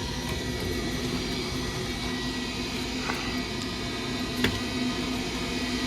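Gas furnace running with a steady motor hum and a constant thin whine, with a couple of faint clicks.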